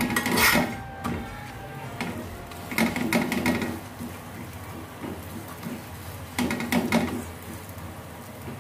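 Steel spatula pressing a chapati down on a cast-iron tawa so that it puffs and cooks through, the metal rattling in three short bursts a few seconds apart over a steady low hiss.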